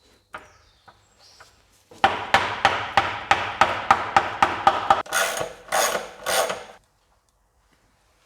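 A ratcheting mechanism clicking, about a dozen sharp clicks at roughly four a second. Then three longer rasping ratchet runs, and it stops.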